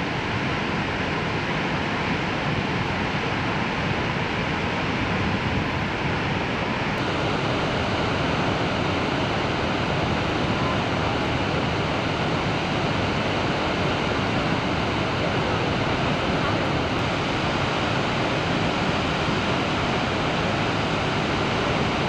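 Steady rushing of the water of Niagara's Horseshoe Falls, a dense unbroken noise with no single events; its colour shifts slightly about seven seconds in.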